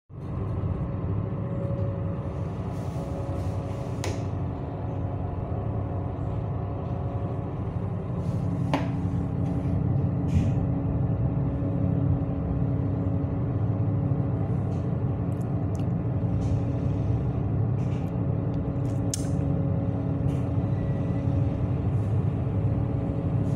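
Steady low drone of a ship's engines heard from inside the passenger cabin, with a few held tones in the hum and occasional short knocks and clicks.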